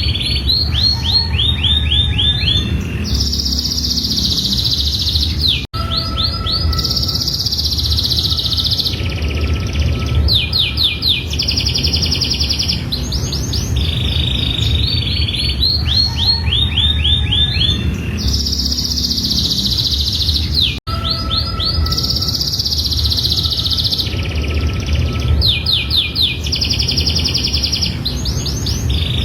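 Domestic canary singing a long, varied song of rapid trills, rolling sweeps and held whistled phrases, over a steady low hum. The same stretch of song repeats about every fifteen seconds, broken by two brief dropouts, about six and twenty-one seconds in.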